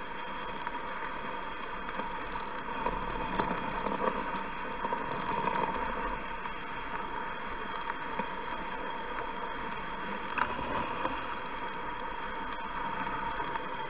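Steady hiss of a dog-drawn rig gliding over packed snow behind a running sled-dog team, over a faint steady whine, with a light knock about ten seconds in.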